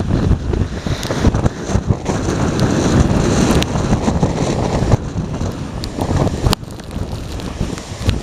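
Strong typhoon wind buffeting the microphone over heavy surf from high waves breaking against the quay and reef. A single sharp click comes about six and a half seconds in, after which the gusts ease a little.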